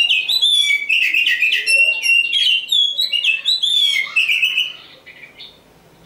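Oriental magpie-robin (kacer) singing a loud, fast run of varied whistled notes, which breaks off about five seconds in.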